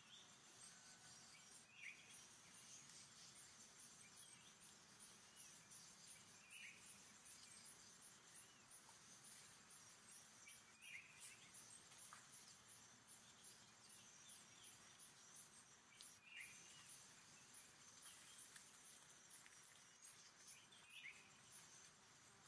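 Faint forest ambience: insects buzzing with a steady high pulse, about two a second, and a bird giving a short chirp about every four to five seconds.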